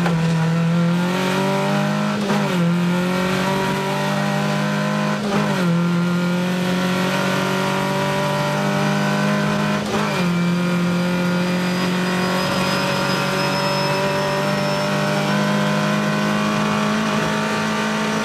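Rally car's engine heard from inside the cabin, running flat out at high revs. It upshifts three times, about 2.5, 5.5 and 10 seconds in, with a brief dip in pitch at each, then pulls steadily with a slowly rising note in the higher gear, over a constant hiss of tyres on the wet road.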